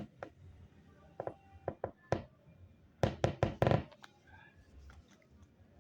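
Light knocks and clicks from handling the work while hand-stitching a press stud onto fabric: a few single taps over the first two seconds, then a quick run of five or six louder knocks about three seconds in.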